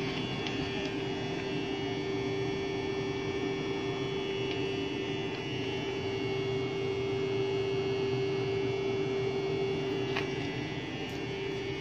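WAG-12B electric locomotive standing with its electrical equipment running: a steady hum with a fainter high whine above it, and a couple of faint clicks near the end.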